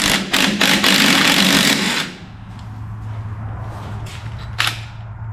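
Impact wrench hammering on a caster's bolt and nut through a long socket extension for about two seconds, then stopping. A low steady hum runs underneath.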